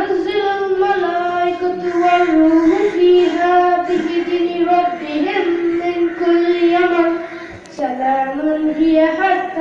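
A group of young girls singing a prayer together in unison, holding long notes. Near the end the singing breaks off briefly for a breath, then resumes.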